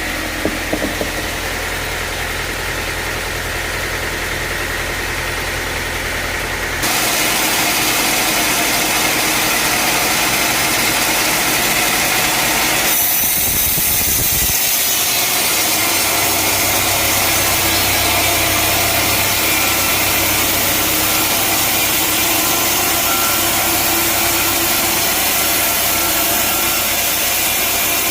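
A sawmill's engine runs steadily. About seven seconds in, the sound turns abruptly louder and noisier, and it shifts again about halfway through.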